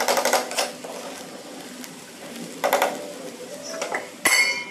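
Metal spoon scraping and clinking against a non-stick kadai while stirring cooked okra and potatoes, in three short bursts: at the start, a little before three seconds in, and near the end.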